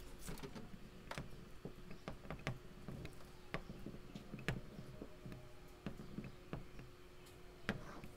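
Stylus clicking and scratching on a tablet screen during handwriting: irregular light taps, about two a second, over a faint steady hum.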